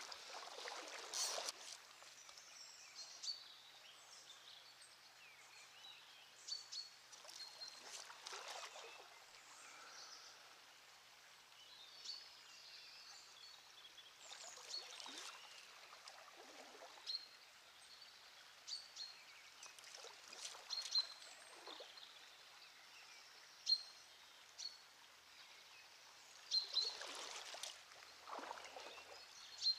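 Shallow river riffle running steadily and faintly, with small birds chirping repeatedly and brief splashes of water now and then.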